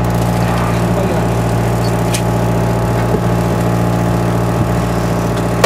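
A party fishing boat's engine running at a steady, even speed with a low drone, with a few light knocks and a sharp click near the end.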